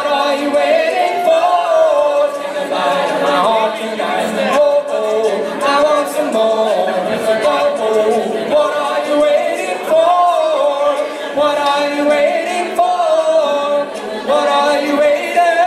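A mixed a cappella group singing a pop song in close harmony, many voices together and no instruments.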